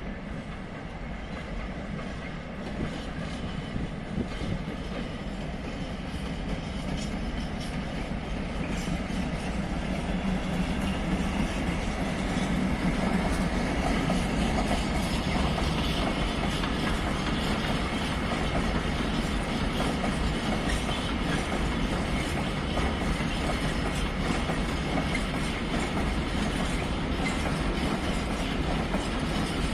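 A train running on the track, getting louder over about the first dozen seconds and then holding steady and loud.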